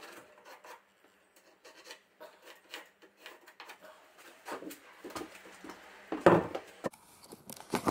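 Light scrapes, taps and rubbing of a softwood newel post being pushed up against a stair base rail and marked around with a pencil, followed by a couple of louder wooden knocks and handling noise as the post is lifted and moved about six seconds in.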